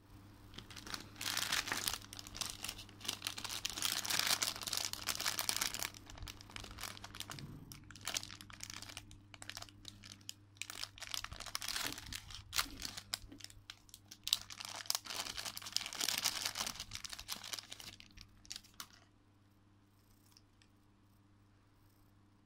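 Thin clear plastic bags crinkling and rustling as they are handled and keychains are pulled out, in two long spells with scattered crackles between. The crinkling stops near the end, leaving only a low steady hum.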